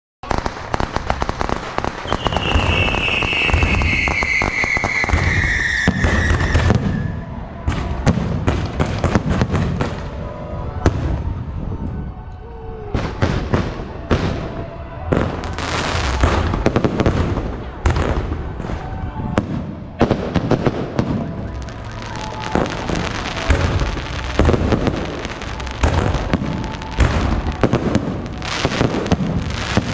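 Aerial fireworks display: a rapid, continuous string of shell bursts and crackling bangs. Over the first several seconds a long whistle slides downward in pitch above the bangs.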